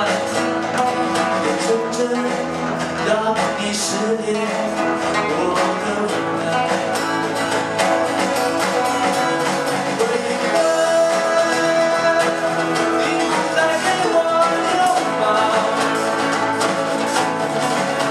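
Band music with guitar: an instrumental passage between sung lines of a song.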